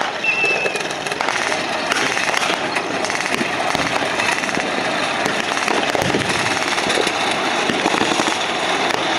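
Blank small-arms fire and pyrotechnic charges of a staged battle crackling densely and without pause, many overlapping pops at once.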